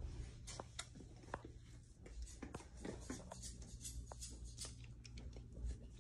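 Faint rustling and scattered light clicks of a person moving about and handling things at close range, over a low steady hum.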